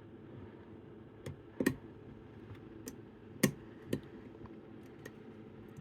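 Irregular sharp metallic clicks and ticks from picking tools working the levers inside an antique Chubb detector lever lock. There are about six clicks, two of them much louder, roughly a second and a half and three and a half seconds in.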